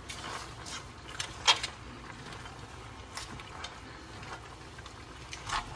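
A utensil clinking and scraping against a stainless-steel pan as braised seafood and vegetables are stirred, with a few light clicks; the sharpest comes about a second and a half in.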